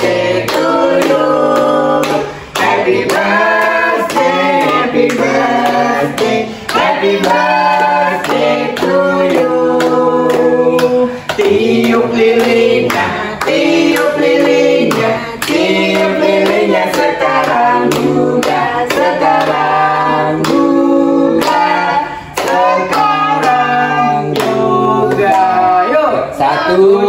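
A group of voices, women's and children's among them, singing birthday songs together, with hands clapping along throughout.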